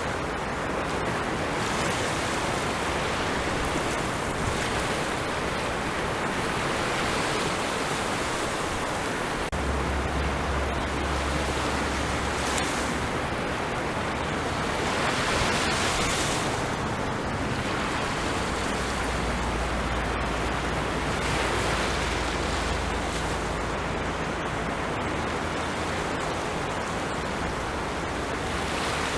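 Ocean waves breaking and washing on a shore, a continuous surf noise that swells gently, with one louder wash about halfway through and a low rumble underneath in the second half.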